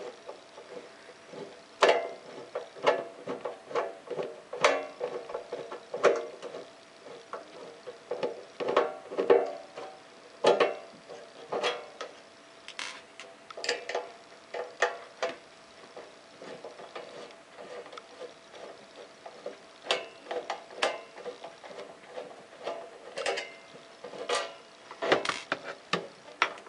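A screwdriver backing self-tapping screws out of an uninterruptible power supply's case: irregular clicks, creaks and scrapes as the screws turn, a few a second with short pauses.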